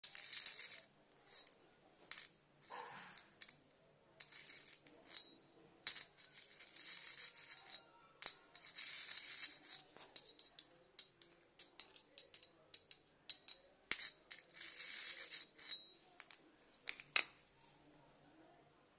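A small round embossed metal case handled in the hands: irregular clicks, scrapes and light metal taps with a high ringing note. A sharp clack comes near the end as it is set down on the floor.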